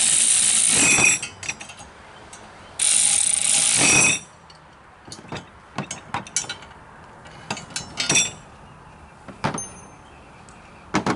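Ratchet wrench clicking rapidly in two runs of about a second each as nuts are tightened onto bracket bolts, followed by scattered light metallic clicks and clinks of tools and hardware.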